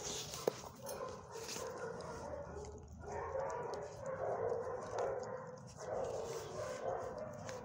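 A dog whining in a string of drawn-out calls, starting about three seconds in.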